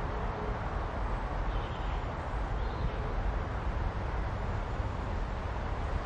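Steady low rumbling outdoor background noise, with no single sound standing out.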